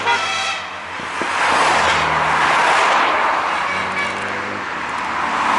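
Cars driving past one after another, their engine and tyre noise swelling as each goes by, about two seconds in and again near the end. A car horn's toot dies away at the very start.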